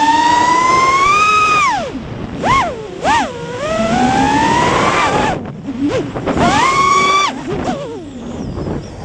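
FPV mini quadcopter's brushless motors whining, the pitch climbing with throttle and then dropping away abruptly about two seconds in. Two short throttle blips follow, then another rising climb cut off near the middle, and a third burst that cuts out near the end.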